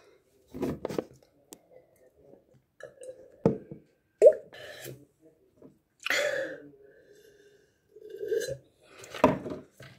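A boy's short gasps, grunts and hissing breaths from the burn of hot chili pepper he has just eaten, between gulps of water from a glass. There is a sharp knock about three and a half seconds in and a breathy hiss about six seconds in.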